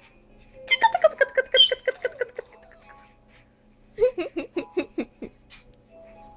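Baby girl vocalising in two quick runs of short pulsed sounds, the first falling in pitch: the spit-laden babbling sounds she has newly learned.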